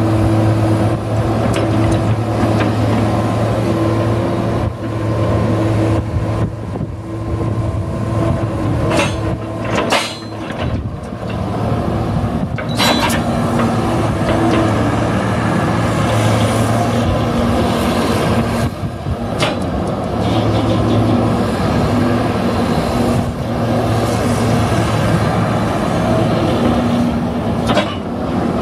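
Sumitomo SH200 excavator's Isuzu diesel engine running steadily under hydraulic load as the boom and bucket are worked, its note shifting as the load comes and goes. A few sharp clanks break in, about a third of the way in, around twelve seconds in, and near the end.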